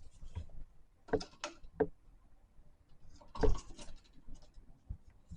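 Scattered light clicks and scrapes of hand tools and wiring being handled, with one louder knock about three and a half seconds in. A voltage tester held to the outlet wires gives no beep, because the circuit is dead.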